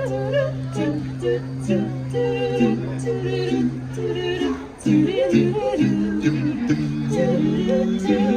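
Vocal group singing close harmony on held notes. A low bass note is sustained for about four seconds, then the voices move in shorter, changing notes.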